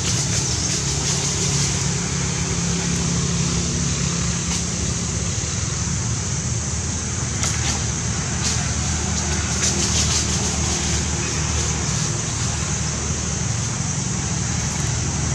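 Steady low engine hum, like a running vehicle, under a steady high hiss, with a few faint short clicks.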